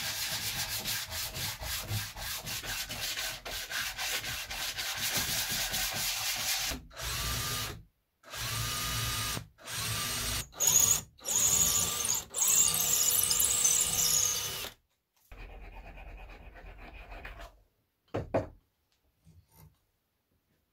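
Rapid hand-sanding strokes on a workpiece. About a third of the way in these give way to a cordless drill boring into a wooden block in short runs, each starting with a rising whine that levels off. A few small knocks near the end.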